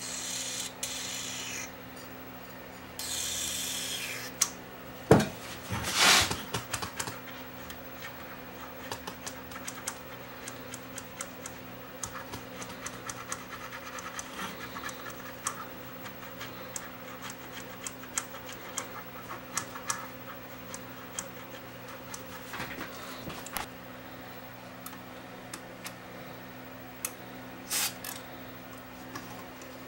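Aerosol contact cleaner hissing through an extension straw into the interface's control potentiometers and jacks in two short sprays, with a brief third one near the end. Between them come two knocks and a long run of small clicks and scratches as the stiff, dirty controls are worked to spread the lubricant.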